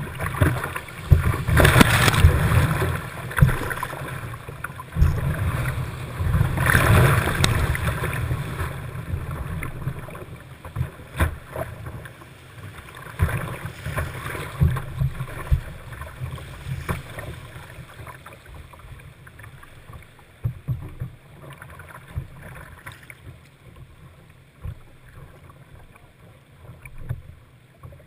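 Whitewater rushing and splashing over a kayak close to the water, with sharp splashes from paddle strokes. It surges loudest twice, about two and seven seconds in, then grows quieter as the water calms toward the end.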